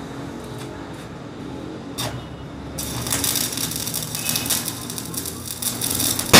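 A single knock, then a rapid rattling clatter from about three seconds in, ending in a loud bang as a sledgehammer strikes the paving.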